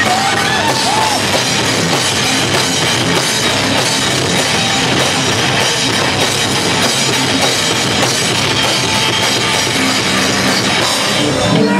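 Thrash metal band playing live: loud distorted guitars and bass over fast drums, picked up roughly by a camera microphone in the crowd.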